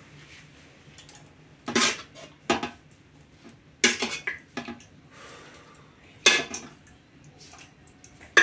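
Metal serving spoon scraping and knocking against an aluminium cooking pot while kefta in tomato sauce is ladled out, in about half a dozen short, sharp scrapes and clinks.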